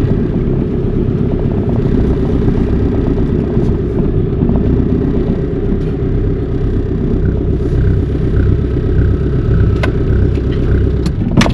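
Steady low rumble of a car on the move, engine and road noise, cutting off abruptly near the end.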